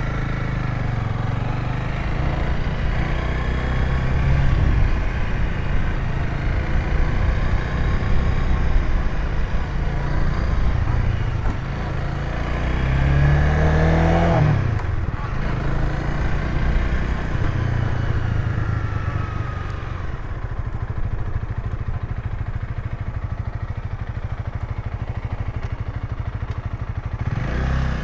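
Honda Rebel 300's single-cylinder engine running as the motorcycle is ridden. About halfway through it revs up in a rising pitch and drops off sharply at a gear change; in the last third it runs lower and steadier, then revs up again near the end.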